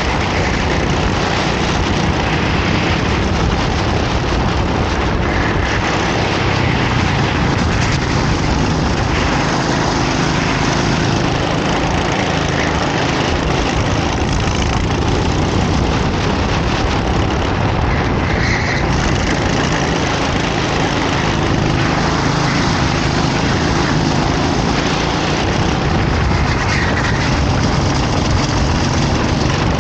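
A racing kart's engine running steadily while under way, mixed with a constant rush of noise and no pauses.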